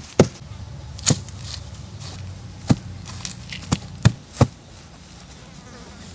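Hands patting and pressing grass turf down onto soil: about six sharp, irregular taps over the first four and a half seconds, over a low buzzing hum that fades out with the last tap.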